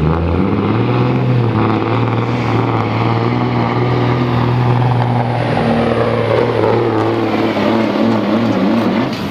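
Semi truck's diesel engine pulling a weight-transfer sled under full load: it revs up about half a second in and holds a steady high pitch, wavering near the end.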